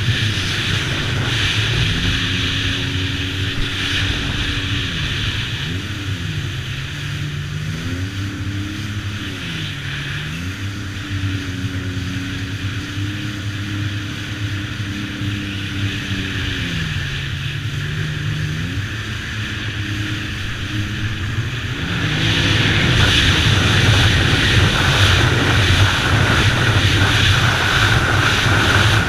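Sea-Doo jet-drive watercraft engine running under way, its pitch rising and falling repeatedly as the throttle changes, over a steady rush of wind and water. The rushing noise grows louder about three-quarters of the way through.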